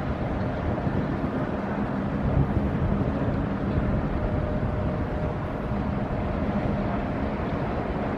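Inland cargo ship's diesel engine running as the vessel passes close by: a steady low drone with a faint hum.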